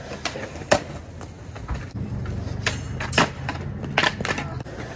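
Skateboard sounds: wheels rolling with a steady low rumble from about two seconds in, and several sharp clacks and knocks of the board hitting the ground.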